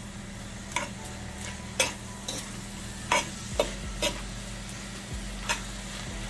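Vegetables sautéing in a skillet with a low steady sizzle while a utensil stirs them, its edge clicking sharply against the pan seven or eight times at uneven intervals.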